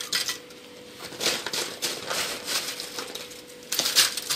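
Ridged potato chips crackling and rustling as they are handled and dropped by hand into a glass baking dish, in several short bursts, the loudest near the end.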